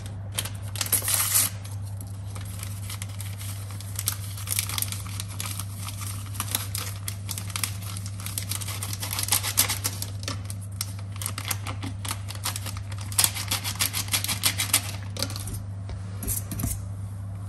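Small paper sachets of baking powder torn open and crinkled, with a hand whisk clicking and scraping against a steel mixing bowl. A low steady hum runs underneath.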